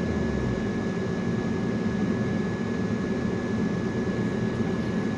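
Car driving along a rutted dirt road, heard from inside the cabin: a steady engine and tyre rumble.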